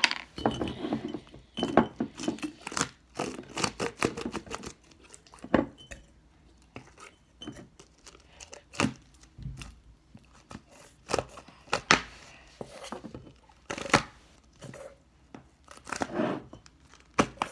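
Slime being pulled apart and pushed into a glass mason jar by hand: a string of sticky clicks and pops, with a few sharper knocks of the jar and containers against the table.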